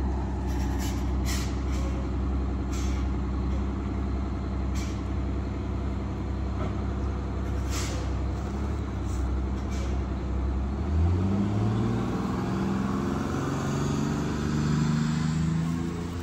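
Detroit Diesel 6V92 two-stroke V6 diesel of an MCI MC9 coach running as the bus pulls away, with a few brief sharp noises in the first half. About eleven seconds in, the engine note rises in steps as it accelerates.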